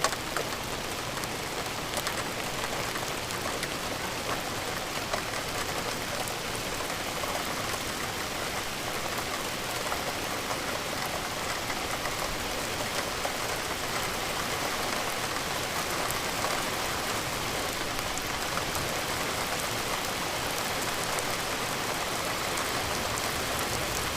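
Steady rain falling and pattering on a surface, an even hiss with fine scattered drop ticks.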